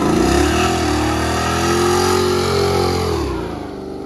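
Compact pickup truck's engine revving hard and held high while its rear tyres spin in a burnout, then fading after about three seconds as the truck pulls away.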